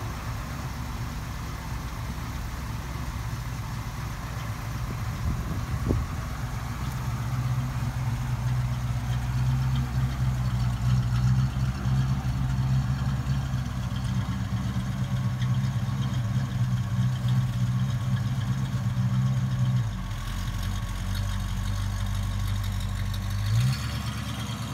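Ford 351 V8 with dual exhaust in a 1973 Mustang running at a low, steady idle, then at low speed as the car rolls off, with one sharp click about six seconds in and a brief rise in revs near the end.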